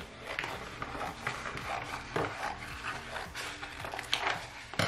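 Scissors snipping through a plastic DTF transfer film sheet, with the film crinkling and crackling as it is turned and cut in irregular short strokes.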